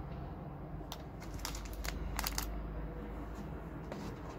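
Packaged products being handled and rummaged through in a gift box: a few short rustles and clicks about one to two and a half seconds in, over a steady low hum.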